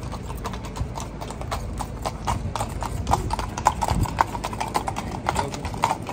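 Hooves of two walking horses clip-clopping on stone paving, many overlapping sharp knocks in an uneven rhythm.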